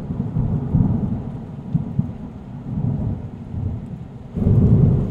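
Thunder rumbling low and rolling, rising and falling and swelling louder about four and a half seconds in.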